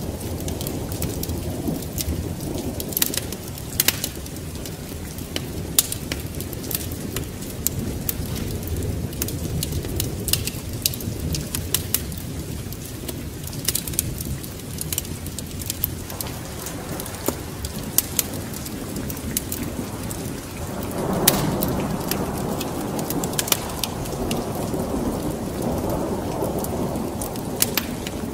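Steady rain over a low rumble of thunder, with sharp crackles and pops from a wood fire throughout. About twenty seconds in, the rain swells louder.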